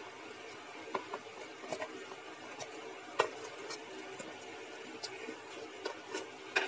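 Scattered light clicks and taps as sliced onion and garlic are tipped off a plate into a blender jar, the sharpest about three seconds in and near the end, over a faint steady hum.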